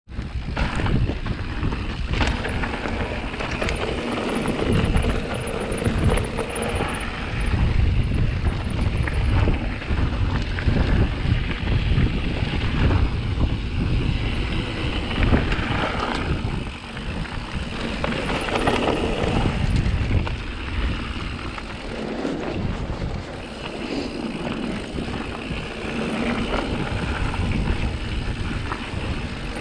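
Mondraker Foxy mountain bike descending a dirt and gravel trail at speed: wind buffeting the microphone over the rumble of the tyres on the dirt, with scattered clicks and rattles from the bike over bumps.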